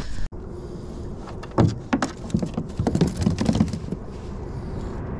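Gear being handled on a plastic kayak, with a plastic tackle box among it: scattered knocks, clicks and rattles that come thickest from about a second and a half in.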